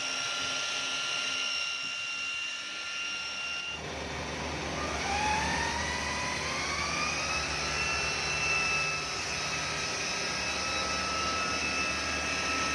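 Chevrolet Malibu engine running with a steady whining hum. About four seconds in, the revs climb over a few seconds and then hold higher, and the whine rises in pitch with them. It is the humming noise that the mechanics diagnose as the timing chain.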